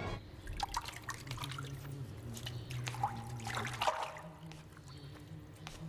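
Bathwater splashing and dripping in small irregular splashes, over a low steady hum.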